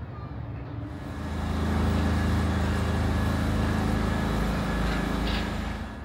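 A large engine passing close by: a steady low hum over a rushing noise. It swells up about a second in and falls away near the end.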